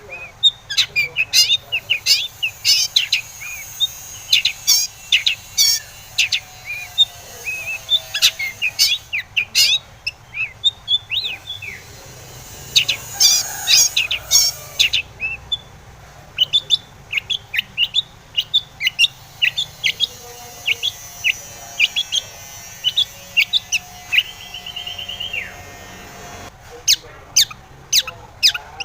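Long-tailed shrike (cendet) singing a fast, varied song of sharp chirps and harsh notes, broken by a couple of short pauses, with a quick rattling trill near the end.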